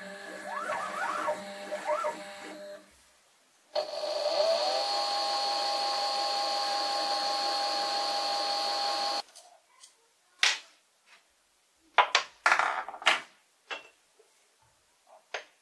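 Homemade concrete-bodied lathe's motors: a motor whines in short rising-and-falling moves for a few seconds. After a brief pause the spindle spins up with a rising whine, runs at a steady pitch for about five seconds and stops. Then come several sharp clicks and knocks of metal tooling being handled on the aluminium cross slide.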